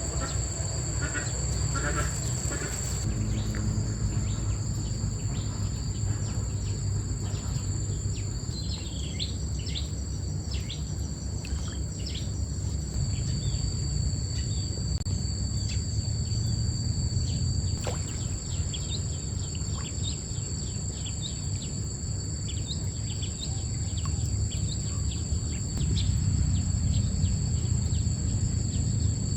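Insects, crickets or cicadas, keep up a steady high two-pitched drone, with scattered short bird chirps through the middle, over a steady low rumble.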